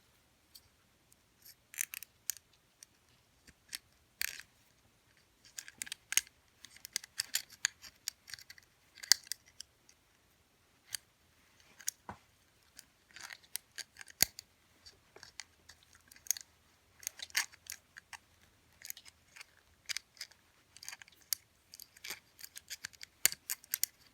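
A small wire lock pick scraping and clicking against the levers inside a spring-loaded lever padlock, working it open without tension. It makes irregular light metallic clicks and scratches.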